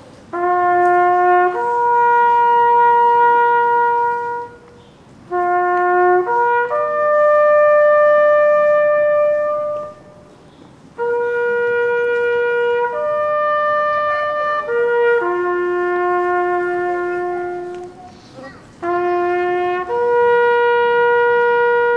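A solo brass instrument plays a slow bugle call. Each phrase has one or two short notes climbing to a long held note, with short pauses between the phrases.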